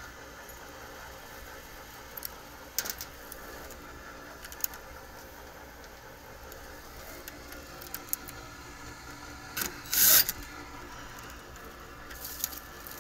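Scattered clicks and clinks of hand tools and panel parts being handled, with a loud brief scrape or rub about ten seconds in, over a steady low hum.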